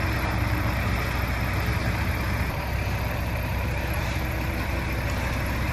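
Heavy diesel engine idling steadily.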